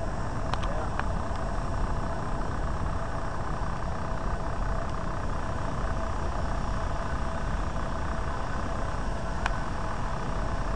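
Steady machinery drone with a faint constant hum, and a few light clicks.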